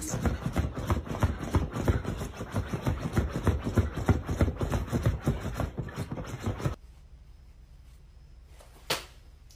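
Dog digging and scratching frantically at fabric couch cushions: a rapid, irregular run of scratches and thuds that stops abruptly about seven seconds in, followed by quiet room tone with a single click near the end.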